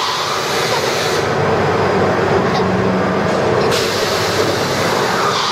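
Steady rushing rumble of a pirate ship swing ride in motion, heard from a seat on the swinging boat. The high hiss in it eases for a couple of seconds in the middle.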